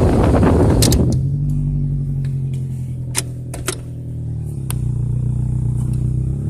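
A 2002 Toyota Corolla's 1.8-litre four-cylinder engine running steadily at low revs, dipping briefly about four and a half seconds in, with several sharp clicks over it. It is a failing engine, a 'bad motor' that shakes, with its check engine light flashing.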